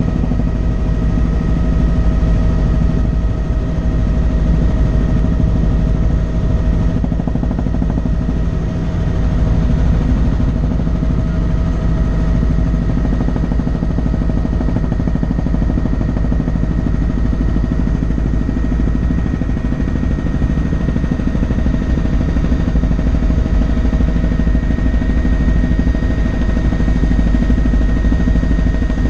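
Helicopter in flight, heard from inside the cabin: a loud, steady rumble of rotor and engine with a constant whine at a few pitches over it.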